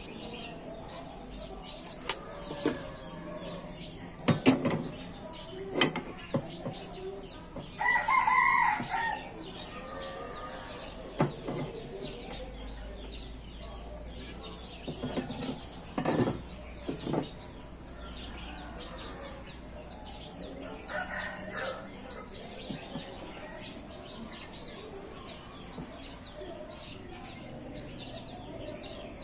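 A rooster crowing once about eight seconds in, with a weaker crow or cluck around twenty-one seconds. Several sharp knocks and taps come in between, from tools being handled on the steel box section, over faint bird chirping.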